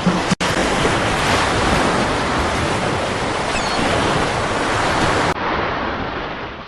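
Sea surf: waves breaking and washing up a beach, with wind. It starts suddenly about half a second in and fades near the end.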